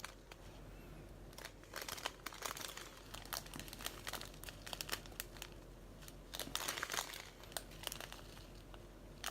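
Small plastic bags of diamond-painting drills crinkling as they are handled, in intermittent quiet rustles, busiest in two spells, one near the start and one past the middle.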